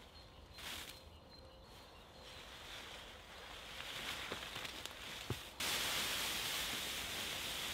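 Rustling of green conifer boughs being pulled and broken off a tree by hand, with a sharp crack about five seconds in. Then, suddenly louder, a steady rustling as the cut boughs are dragged over dry leaf litter.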